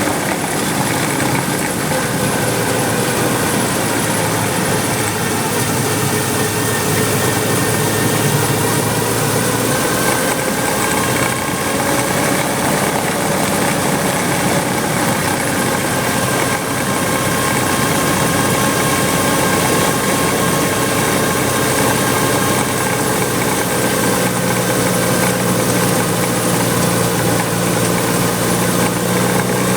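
Willys MB four-cylinder flathead engine idling, with a steady squeal from the clutch group whose pitch wanders slightly. The squeal appeared about 1,000 miles after a complete rebuild; the owner suspects the throwout bearing, or the sealed bearing fitted in place of the flywheel's pilot bushing.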